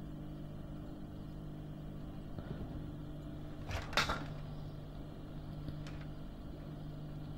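Quiet room tone with a steady low electrical hum, and one short clink about four seconds in.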